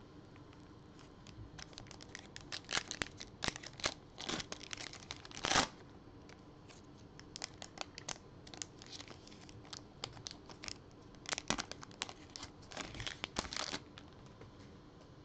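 Foil wrapper of a Panini NBA Hoops Premium Stock trading-card pack being torn open and crinkled in gloved hands. It crackles in several bursts, loudest a little past five seconds in.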